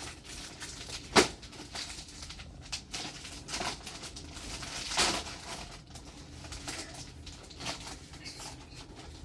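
A sharp knock about a second in and a softer one around five seconds, with a few faint clicks over low background noise.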